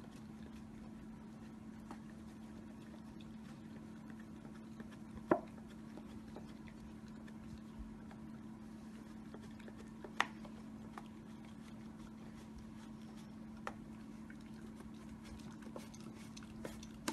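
Shiba Inu licking out a plastic yogurt cup: soft wet licking with a few sharp clicks of tongue and muzzle against the plastic, the loudest about five and ten seconds in, over a steady low hum.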